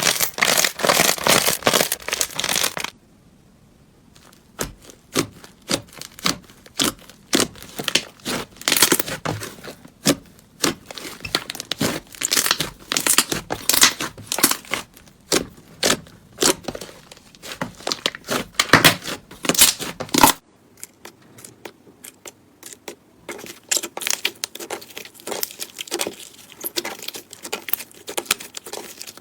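Hands squeezing and stretching slime: dense crackling and popping clicks. The crackling breaks off about three seconds in and again about two-thirds of the way through, and is softer in the last part.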